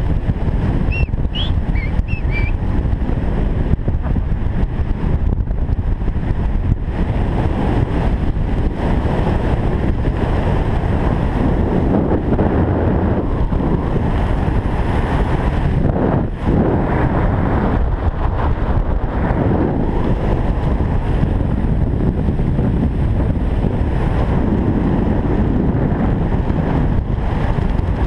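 Wind rushing over the microphone of a skydiver's camera during a descent under an open parachute canopy: a steady, loud rush with no let-up.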